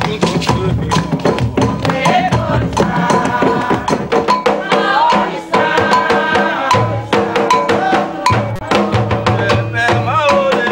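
Afro-Brazilian vodun ritual music: drums and other percussion playing a fast, steady rhythm, with voices singing a chant over them.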